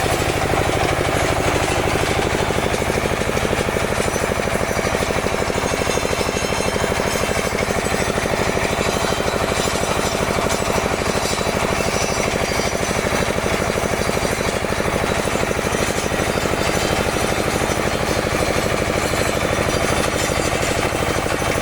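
Small soil-testing drill machine running steadily, with a fast, even mechanical chatter.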